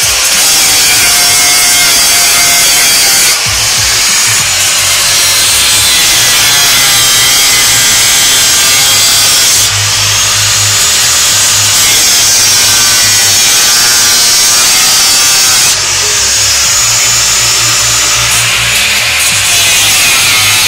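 Handheld angle grinder with an abrasive disc grinding into a metal bicycle frame tube, a loud continuous high whine and rasp whose pitch wavers as the disc bites and eases off. The sound dips briefly about three, ten and sixteen seconds in as the grinder is repositioned.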